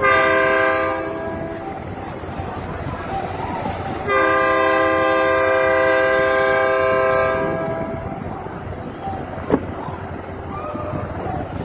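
Large river passenger ferry's horn sounding two steady blasts, a short one and then a long one of about three and a half seconds, as the boat departs.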